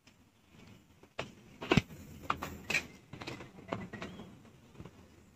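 Footsteps walking uphill, a series of short knocks about two a second, starting a little over a second in.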